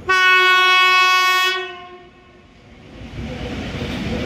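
The horn of an ET22 electric locomotive sounds one steady blast of about a second and a half. The rumble and rolling noise of the locomotive and its train of tank wagons then builds as it draws near.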